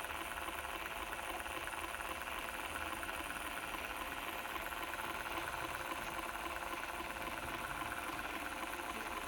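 Low-voltage stepper motors turning a pair of miniature 3D-printed rooftop ventilator fans, giving a steady mechanical hum with several faint even tones.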